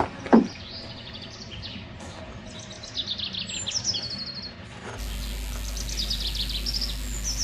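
Songbirds chirping and singing quick high trills, over and over. A short thump comes just after the start, and a steady low hum begins about five seconds in.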